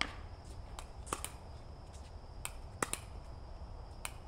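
Pickleball rally: sharp pops of paddles striking the plastic ball, roughly one a second, some in quick pairs, the loudest right at the start, over a steady low background noise.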